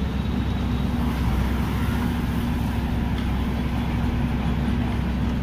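Steady low drone of a horizontal directional drilling rig's engine running, with an even hum that does not change.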